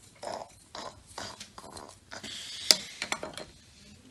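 Plastic toy tools clattering and clicking as they are handled. There are several short scrapes, then a sharp click nearly three seconds in, followed by a few lighter clicks.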